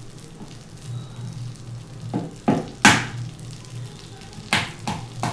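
Melted butter sizzling and bubbling in a nonstick skillet over a gas flame, with a few sharp knocks about two to three seconds in and again near the end.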